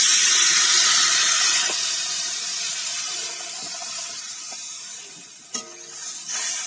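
Water poured into a hot kadai of oil-fried, spiced elephant foot yam pieces: a loud sizzling hiss that dies away gradually as the water fills the pan. Near the end a spatula stirs against the metal pan.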